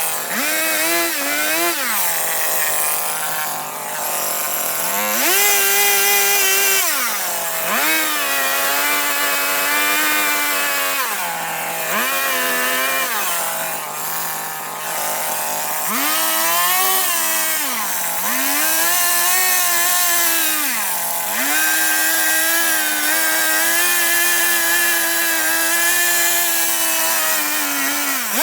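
Chainsaw cutting into wood during carving. The engine is revved up and let back down to idle again and again, then holds at speed for several seconds near the end.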